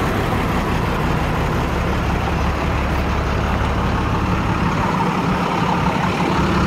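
Truck engine idling steadily, a constant low hum.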